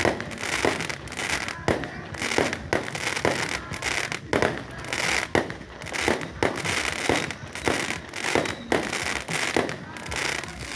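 Fireworks going off in a rapid string of sharp bangs, about two or three a second, over a steady crackle.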